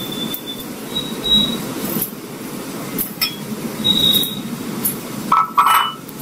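Dry split moong dal poured from a glass bowl into a steel mixer-grinder jar: a hiss of sliding grains with short squeaks and clinks of glass on the steel, and a few louder clinks near the end.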